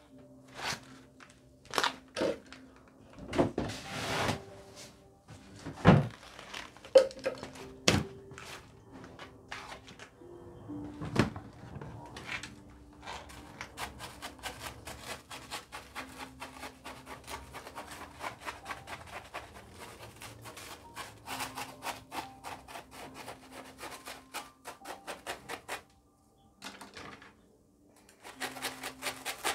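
Wooden chopstick jabbing repeatedly into gritty bonsai soil, a fast run of small scratchy clicks as the soil is worked in around the roots, after a few heavier thunks in the first dozen seconds. Soft background music with held notes underneath.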